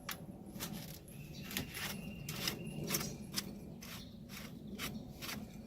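Plastic union nut on a pool salt chlorine cell being spun off its threads by hand: a run of irregular clicks and scrapes.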